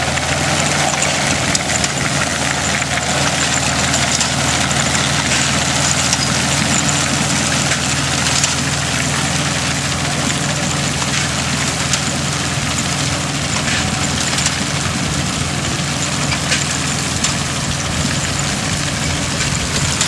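Farmall tractor engine running steadily while pulling a grain binder, with a light clatter from the binder's working parts over it.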